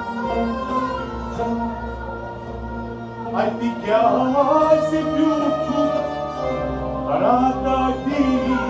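Kashmiri Sufiyana music: harmonium and strings holding long notes. A man's voice sings a bending phrase about three and a half seconds in and another about seven seconds in.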